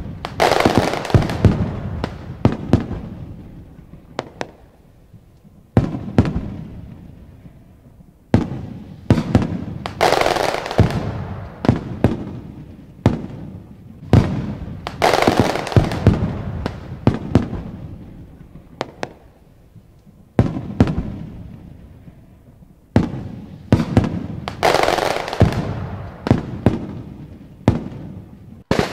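Aerial firework shells bursting: a long series of sharp bangs coming in clusters every few seconds, each trailing off in echo.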